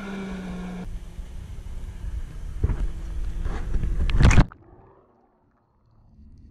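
Jet ski engine running, mixed with rough wind rush on the microphone that swells to a loud peak about four seconds in. The sound then cuts off abruptly to near silence, and a faint noise creeps back near the end.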